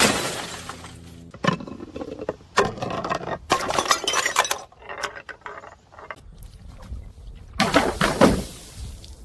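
Glass bottles being crushed, with repeated bursts of shattering and crunching glass, heaviest in the middle and again near the end. A low steady hum sounds for about the first second.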